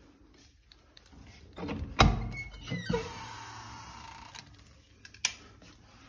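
Room door being opened: a loud clunk of the lever handle and latch about two seconds in, a second knock a moment later, then a short stretch of hiss, and a sharp click near the end.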